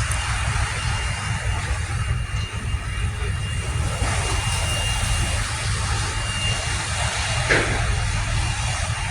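A road vehicle travelling, with a continuous low rumble, a steady hiss of road and engine noise, and a thin steady high whine. A brief louder sound comes about seven and a half seconds in.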